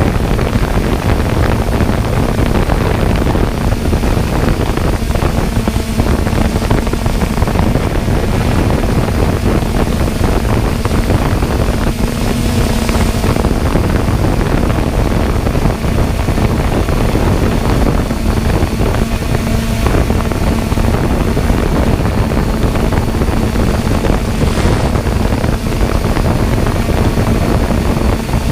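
Steady rotor hum holding one constant pitch, with heavy wind noise on the microphone over a low rumble.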